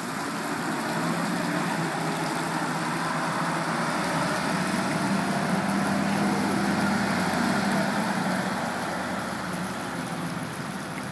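Forklift engine running steadily at work, its hum growing louder through the middle and easing off near the end.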